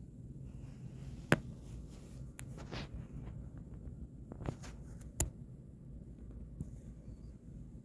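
A few sharp clicks and knocks, scattered over a low steady rumble, the loudest about a second in.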